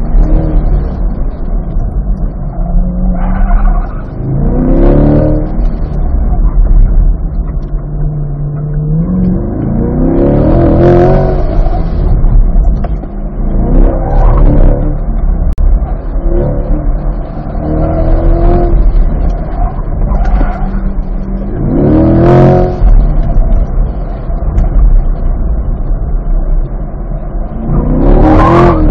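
Chevrolet C8 Corvette's V8 engine pulling hard in second gear through an autocross course. Its pitch climbs about six times, as the car accelerates out of each turn, and drops back between.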